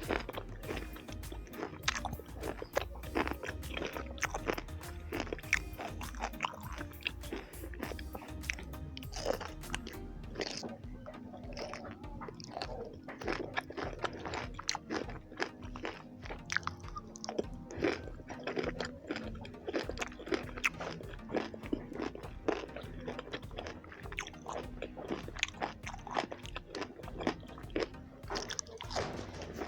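Close-miked eating: a person biting and chewing with many short crunchy bites, over steady background music.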